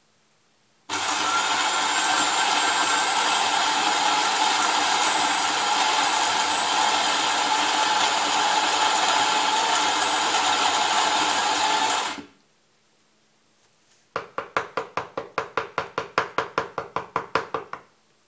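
Electric coffee grinder grinding espresso beans into a portafilter, a steady loud whirr that starts about a second in and stops after about eleven seconds. A couple of seconds later comes a fast run of sharp clacks, about six a second for some four seconds, as the grounds are knocked and settled.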